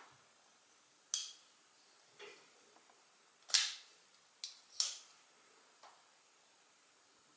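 Custom Knife Factory S.S.E. folding knife on freshly oiled pivot bearings being flipped open and shut. Its blade snaps into the lock and the detent with six sharp clicks, the loudest about three and a half and five seconds in.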